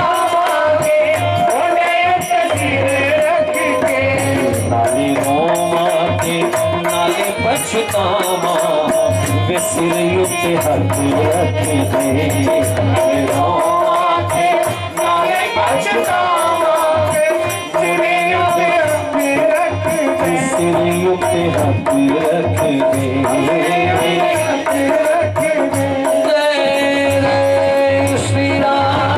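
Devotional bhajan music without voice: a sustained, wavering melody over a steady hand-percussion rhythm with jingling rattles.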